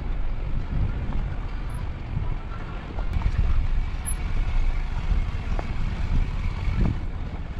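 Wind buffeting the microphone of a vehicle riding down a rough dirt track, giving an uneven low rumble with a few light knocks.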